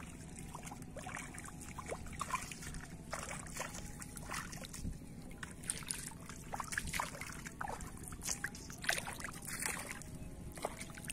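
Bare feet wading through shallow, muddy water: irregular sloshing splashes and squelches, one after another.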